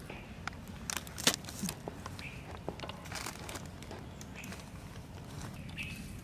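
Dried red chilli being crumbled by hand: three sharp crackles and snaps in the first second and a half, then faint crinkling.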